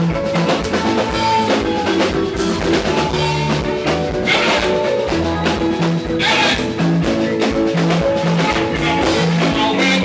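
Live band music: a drum kit with rimshots and bass drum keeping a steady beat under electric guitar, bass guitar and keyboard.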